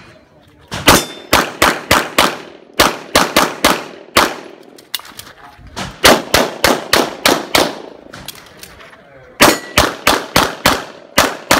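Handgun firing rapid strings of shots during an IPSC course of fire, often in quick pairs, each shot echoing briefly. The strings are broken by short pauses of about a second, three times.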